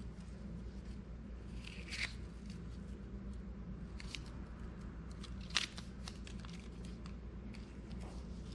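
Plastic protective wrap crinkling and crackling as it is peeled off a new wristwatch, with two sharper crackles about two seconds and five and a half seconds in. A steady low hum runs underneath.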